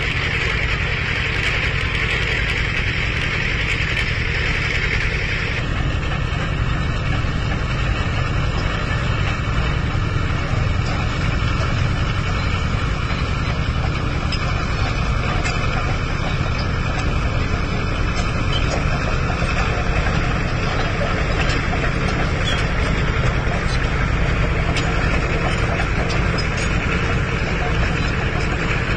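Heavy diesel engine of a bulldozer or its transport truck running steadily, with a deep rumble. A higher-pitched part of the noise fades out about five seconds in.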